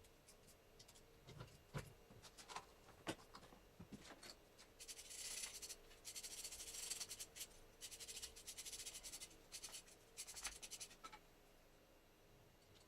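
Hand work on alternator parts: a few light clicks of small metal parts being handled, then several stretches of quick, rhythmic scraping strokes, each lasting about a second.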